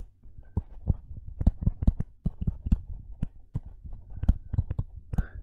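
Stylus writing on a tablet screen: irregular taps and clicks, about four a second, each with a dull low thud, as words are handwritten.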